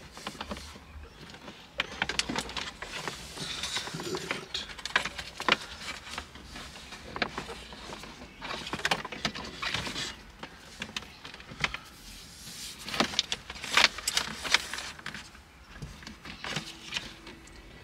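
Hands working behind a car's dashboard as a USB cable is pushed through: scattered plastic clicks and knocks with rustling of cable and wiring.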